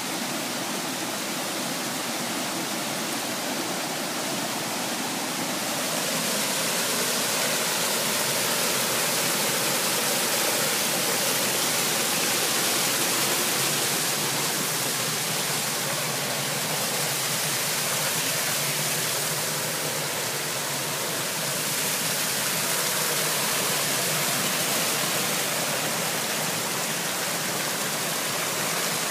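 Small waterfall spilling over rock ledges into a creek pool: a steady rushing of water, a little louder from about six seconds in.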